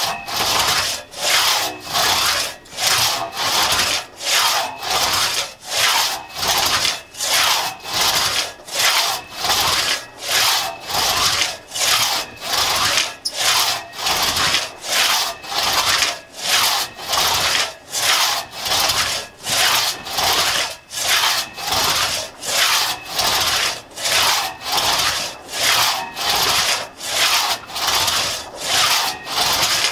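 A 4.5-foot Tuttle-tooth one-man crosscut saw cutting through a log by hand, its teeth rasping through the wood on every push and pull stroke. The strokes come in a steady, even rhythm, about one and a half a second.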